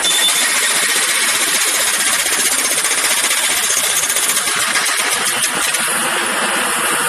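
Jackhammer running continuously, a rapid unbroken stream of blows, its tone shifting slightly about six seconds in.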